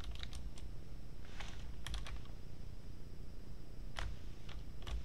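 Typing on a computer keyboard: scattered keystrokes in a few short bursts, a handful near the start, a quick cluster about two seconds in, and a few more near the end.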